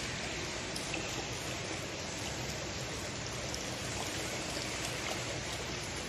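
Water running and trickling steadily over the tiered marble basins of an ablution fountain, with a steady low hum underneath.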